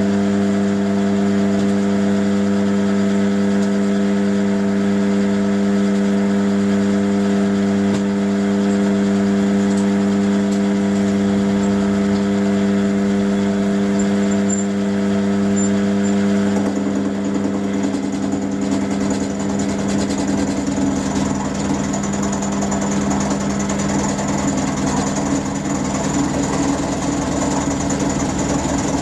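Round-column mill-drill motor running with an end mill cutting steel: a steady hum, and about 16 seconds in the sound turns rougher and more rattly as the cut changes.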